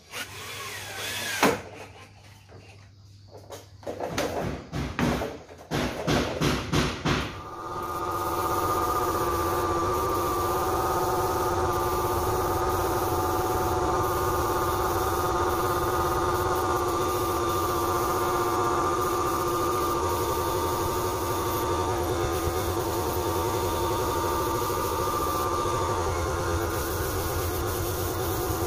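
Several seconds of scattered knocks and clatter, then a steady machine drone that holds one pitch from about eight seconds in.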